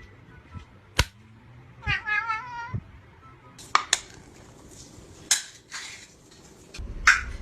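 A hungry cat meowing once, a single wavering call about two seconds in, with a few sharp clicks and knocks around it.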